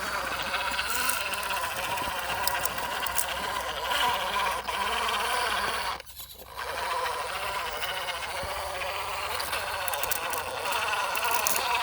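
Brushless motor and drivetrain of an MN82 RC crawler whining as it crawls over rock, the pitch wavering with the throttle. The whine stops for about half a second around six seconds in, then picks up again.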